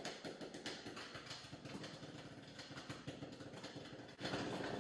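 Suzuki LT250R's 250cc two-stroke single-cylinder engine running faintly, a fast, even patter of firing pulses, growing louder near the end.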